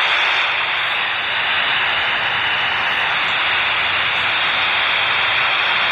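Steady FM receiver static hiss from a Baofeng UV-5R handheld's speaker, tuned to 145.800 MHz with no ISS signal on the frequency once the astronaut has unkeyed after saying "over".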